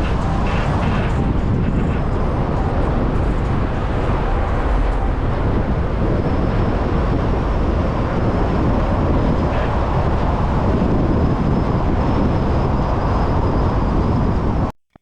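Steady roar of a waterfall, an even rushing noise that cuts off suddenly near the end.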